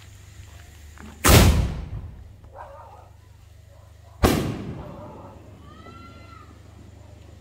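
3-inch flower crown aerial shell fired from a mortar tube: the lift charge goes off with a loud bang about a second in, and about three seconds later the shell bursts overhead with a second bang, each trailing off.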